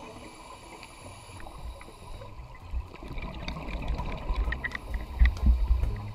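Underwater sound through a camera housing: a low, muffled water noise with faint clicks. From about four seconds in come louder low bubbling rumbles, a scuba diver's exhaled breath bubbling out of the regulator.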